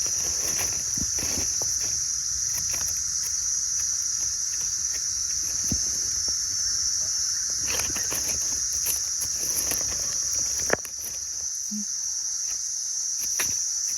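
Steady high-pitched insect chorus, with scattered light clicks and rustles. The low background noise drops away suddenly about three-quarters of the way through while the insects carry on.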